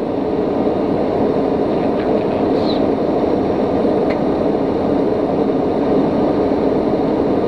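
Steady cabin noise inside a TBM850 single-engine turboprop on approach: its Pratt & Whitney PT6A engine and propeller at low power, around 20%, mixed with airflow noise.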